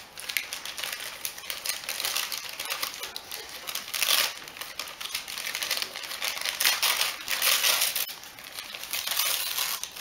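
Striped gift-wrapping paper crinkling and rustling as a small present is unwrapped by hand. It makes a dense crackle, with several louder rustles, the first about four seconds in.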